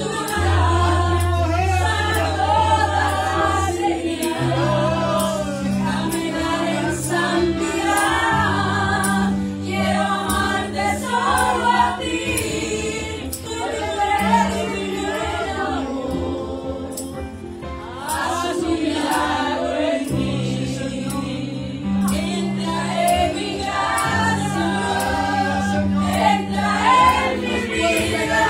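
Gospel worship song: a woman singing lead into a microphone over long held bass notes that change every couple of seconds. The music eases off briefly about two-thirds of the way through, then picks up again.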